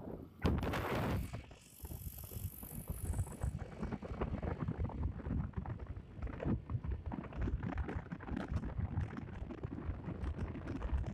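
Road and wind noise from a moving motorcycle: an uneven low rumble with gusty buffeting and rattling, with a loud rush about half a second in.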